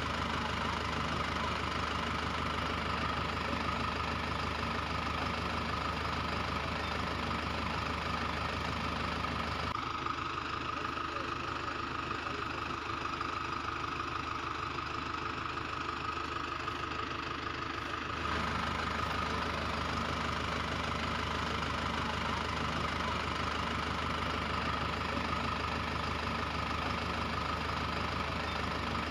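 Tractor engine idling steadily. For several seconds near the middle its tone changes, thinner in the highs, then returns.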